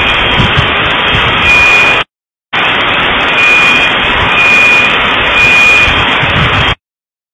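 Loud, distorted wall of noise with a high beeping tone coming and going, like an alarm, after the explosion. The sound cuts out for about half a second near two seconds in, resumes, then stops shortly before the end.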